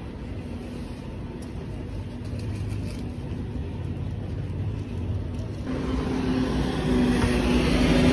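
City street traffic: a low rumble of cars. It grows louder about six seconds in, where the steady hum of a nearby vehicle engine comes in.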